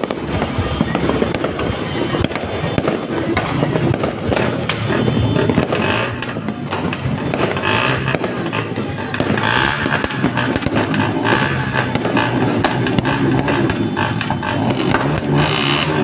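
Fireworks bursting and crackling in a dense barrage, with no pause.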